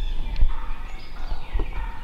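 Wild turkey gobbler gobbling, with another gobble starting near the end, and two low thumps, about half a second and a second and a half in.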